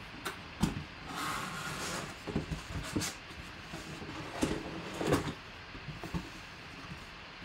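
Cardboard box being opened by hand, with the flaps scraping and rustling and several sharp knocks as a clear plastic mini-helmet display case is drawn out.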